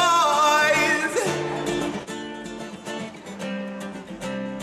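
A man's voice holds a long sung note with a slight waver, ending about a second in. Then a guitar is strummed in a steady rhythm.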